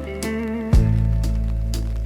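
Blues music, instrumental passage: guitar notes over a held bass, with a new bass note coming in about three-quarters of a second in.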